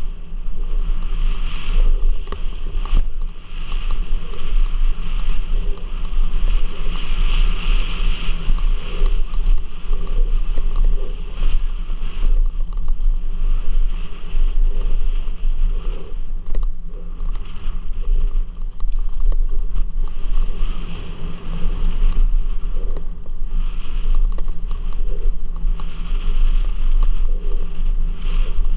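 Wind buffeting the helmet camera's microphone on a fast downhill mountain bike descent, over a steady low rumble of knobby tyres on a dirt trail. Frequent short rattles and knocks from the bike as it runs over roots and bumps.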